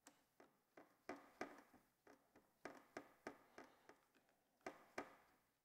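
Faint clicks of a stubby screwdriver tightening the two screws of a motorcycle handlebar switch pod, about eight in all, mostly in pairs.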